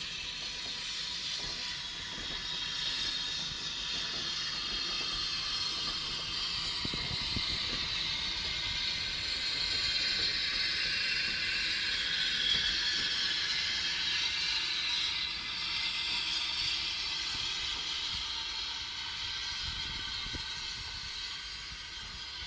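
Steam-hauled passenger train passing: a steady hiss with running noise that grows to its loudest about halfway through, then eases as the train moves away.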